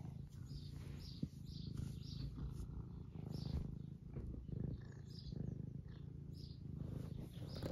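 A semi-long-haired domestic tabby cat purring steadily, swelling and easing with each breath, content at being stroked.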